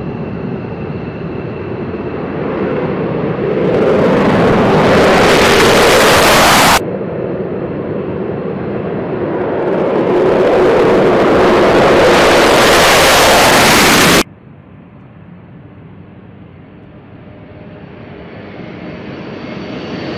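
Military jets taking off one after another, joined by abrupt cuts. First a fighter's jet roar swells to full loudness about four seconds in. Next comes an F-22 Raptor's loud takeoff roar. Last, a KC-135 Stratotanker's four-engine drone starts much quieter and grows steadily louder as it lifts off.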